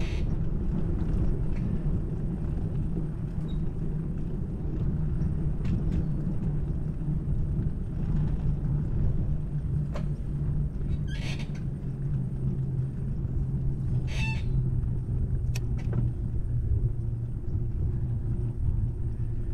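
Wind buffeting a handlebar-mounted action camera and bicycle tyres rolling on a concrete path: a steady low rumble with a low hum that sinks slightly in pitch over the second half. Two brief high squeaks come about 11 and 14 seconds in.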